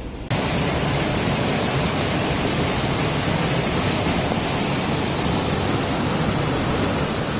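Steady, loud rush of a rainstorm with wind, starting abruptly just after the start.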